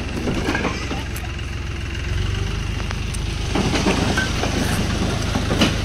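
Diesel tractor engine running steadily. About two seconds in it gets louder and its note changes.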